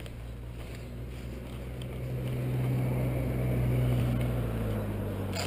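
MV Agusta Rivale 800's three-cylinder engine idling steadily, growing louder about two seconds in and easing slightly near the end.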